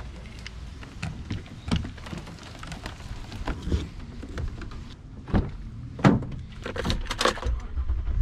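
Scattered clicks, knocks and thunks of fishing rods and gear being handled and set down on a plastic kayak, the loudest thunk about six seconds in. Near the end, keys rattle as one is turned in a truck's ignition.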